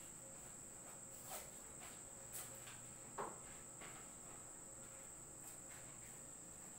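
Quiet room with a steady high-pitched tone throughout and a few soft rustles of loose paper sheets being handled, including a short falling squeak about three seconds in.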